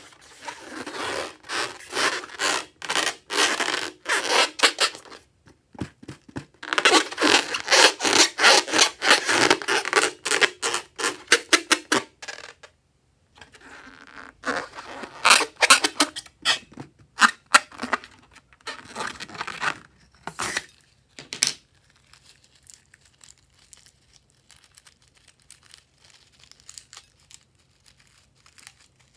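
Hands rubbing and squeezing a filled rubber balloon: dense runs of rubber rubbing and squeaking for about the first twelve seconds, then shorter scattered rubs, fading to faint handling noise after about twenty seconds.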